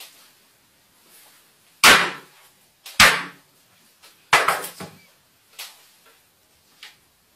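Hammer blows on a Samsung smartphone lying on a wooden desk: two heavy strikes about a second apart, then a third that breaks into a quick cluster of knocks, and a couple of lighter knocks later on. The blows crack the phone's screen.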